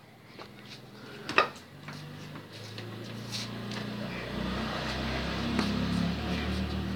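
A motor engine humming, growing louder over several seconds and easing off near the end. A brief sharp sound comes about one and a half seconds in.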